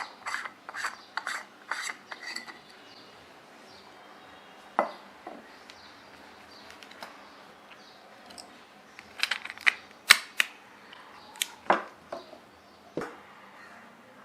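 Small sharp clicks and taps of a compact camera's lens cover and screw-on lens filter being handled and taken off: a quick run of clicks at first, then scattered clicks about nine to thirteen seconds in.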